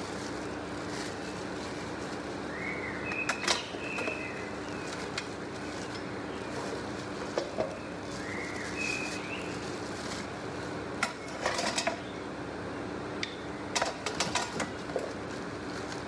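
Plastic bag wrapping crinkling as grill parts are handled and unwrapped, in short rustling bursts a few seconds apart over a steady background hiss.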